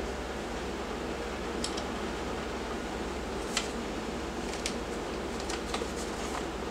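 A few faint, irregular plastic clicks from an airsoft M14 magazine being handled, over a steady background hum.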